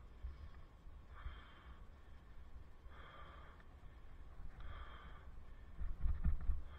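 A cyclist breathing hard while climbing a steep hill, with three heavy breaths about two seconds apart. Under them is a steady low rumble of wind and road noise on the helmet microphone, which gets louder near the end.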